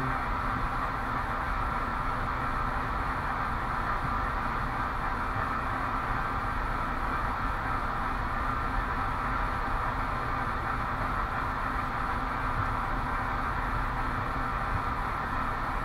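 Steady rushing background noise, even throughout, with no distinct clicks or knocks.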